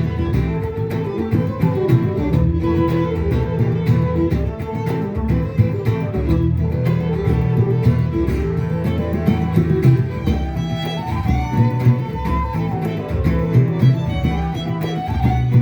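Live instrumental folk music: a melody that sounds like a fiddle over guitar accompaniment, with steady low notes held underneath.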